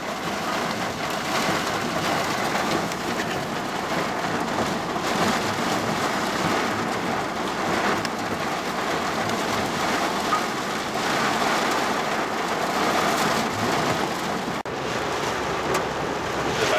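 Heavy wind-driven thunderstorm rain lashing a vehicle's windscreen and body, heard from inside the vehicle as a dense, steady hiss. Strong storm wind is ripping through.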